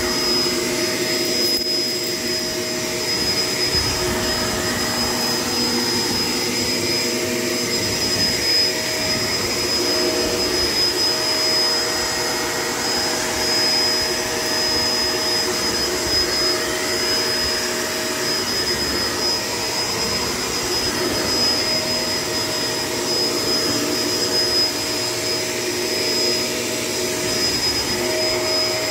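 Shark LA702 Lift-Away upright vacuum cleaner running steadily: a continuous motor whine with a high steady tone, its lower hum shifting a little now and then.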